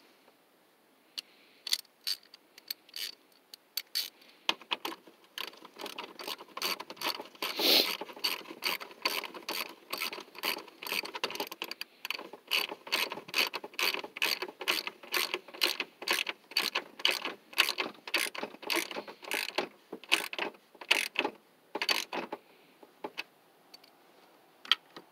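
Ratchet wrench clicking as it turns a 10 mm screw, a long even run of clicks at about two or three a second that stops a few seconds before the end.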